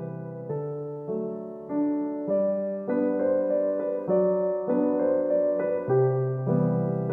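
Background piano music: a gentle melody of notes over low sustained notes, getting louder about two seconds in.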